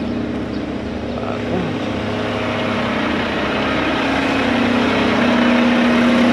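Front-load garbage truck's diesel engine running with a steady low hum as the truck drives slowly, growing louder over the last few seconds.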